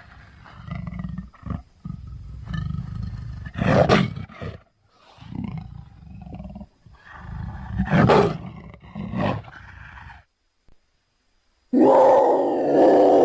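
Big-cat roars and growls voicing the extinct cat Panthera shawi: low rumbling growls that swell into two loud roars, about four and eight seconds in. After a silent pause of about a second and a half near the end, another loud call begins.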